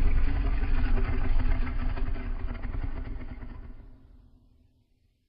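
The end of a deep, rough designed monster roar sound effect, dying away gradually to nothing over the first four and a half seconds.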